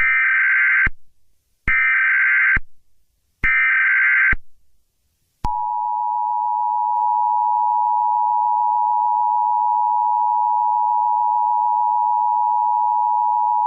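Emergency Alert System tones: three short buzzing bursts of the SAME digital header, then the steady two-tone EAS attention signal held for about eight seconds. It announces the severe thunderstorm warning that follows.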